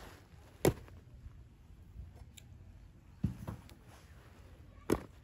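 Steel tube legs of a Wanderer camp stretcher bed clicking and knocking as they are unclipped from the bed's frame: three sharp clicks, spread a couple of seconds apart.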